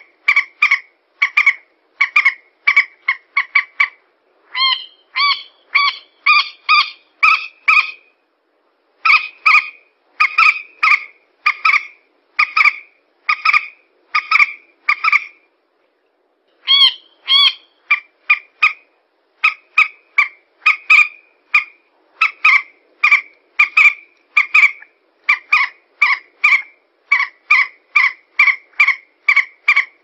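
Common moorhen calling: a fast series of short, clipped notes, about three a second, in runs broken by brief pauses about four, eight and sixteen seconds in.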